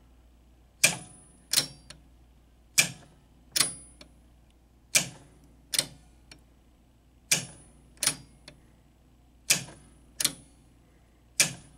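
Roto-target unit of a 1963 Gottlieb Ship Mates electromechanical pinball machine being cycled five times, each cycle a pair of sharp mechanical clacks about 0.7 s apart as the roto target spins a short way and stops. It turns freely, its shaft freshly oiled.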